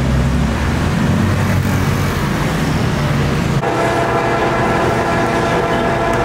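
Lathe running with a steady low hum. About three and a half seconds in, a steady, higher-pitched whine sets in sharply.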